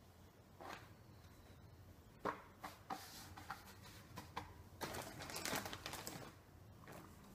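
Soft taps of hands working a sheet of dough on a counter, then a thin plastic bag of flour crinkling for about a second near the end.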